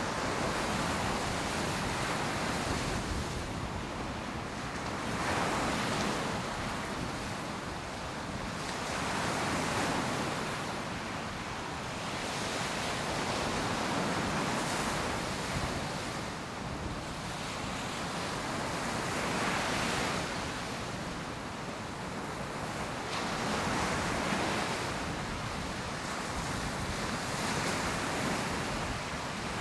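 Ocean surf breaking on a beach, each wave swelling and washing in about every four to five seconds over a steady hiss of water.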